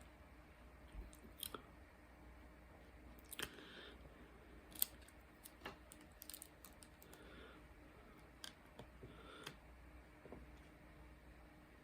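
Faint, irregular small clicks and taps of diamond-painting work, a drill pen picking up resin drills and pressing them onto the canvas, with one sharper click a little under halfway through.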